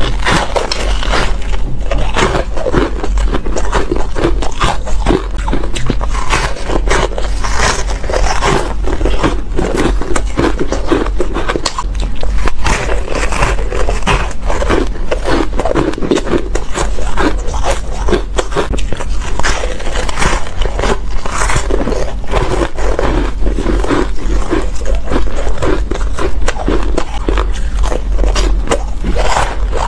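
Close-miked biting and chewing of soft, crunchy red-tinted ice, a dense, irregular crunching and crackling that never lets up.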